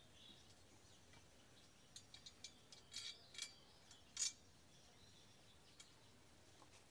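A few small sharp clicks and taps as a bolt and nut are fitted by hand to the ring of an insect light trap's stand, bunched in the middle, the loudest a little past four seconds in; otherwise near silence.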